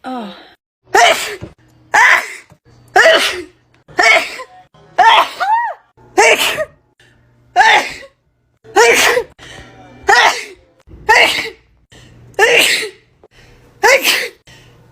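A young woman sneezing over and over from allergies, about a dozen loud voiced sneezes in a row, roughly one a second.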